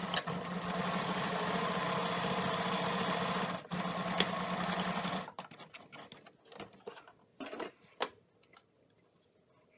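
Pfaff domestic sewing machine stitching a seam at a steady speed, with a short break about three and a half seconds in, then stopping about five seconds in. A few sharp clicks follow, as the threads are snipped with scissors.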